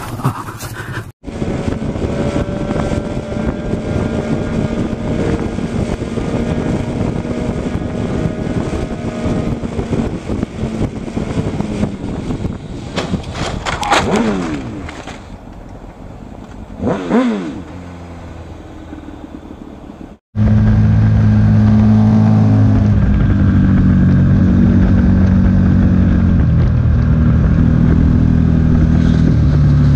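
Motorcycle riding sounds from a camera on the bike, in clips with hard cuts between them. First the engine runs under wind and traffic noise, with two quick falling pitch sweeps around the middle. Then a louder stretch follows: steady low engine drone that changes pitch in steps.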